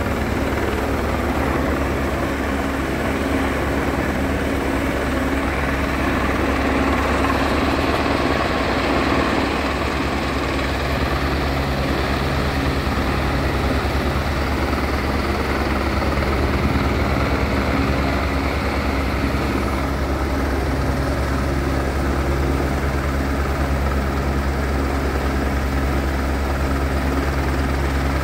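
Helicopter hovering overhead, its rotor beating and engine running steadily at a constant pitch.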